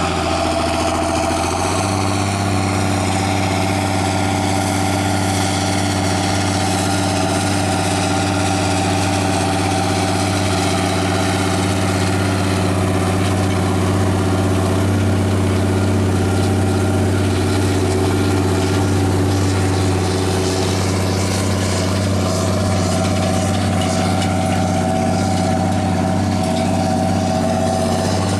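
Straight-piped Claas Axion tractor's diesel engine running under steady load while pulling a cultivator, a loud, steady exhaust note.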